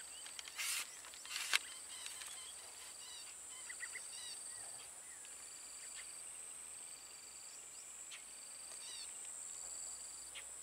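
Steady high-pitched drone of insects, with short chirping bird calls repeating several times through it. Two brief rustling noises come in the first two seconds.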